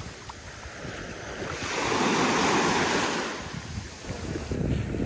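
Ocean waves washing in, one swell rising and falling about two seconds in, with wind buffeting the microphone near the end.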